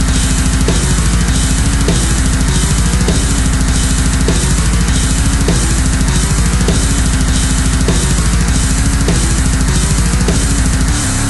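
Loud heavy metal music with a fast, driving drum kit and dense distorted sound.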